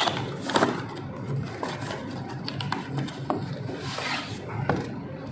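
A new A/C compressor being unpacked from its packaging: scattered knocks, clicks and scraping of the box and wrapping, with the loudest knocks right at the start and about half a second in, and a longer scrape around four seconds.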